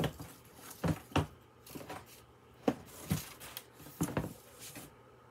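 Books and packaging being handled while the next book is fetched from a box: a string of short, irregular knocks and rustles.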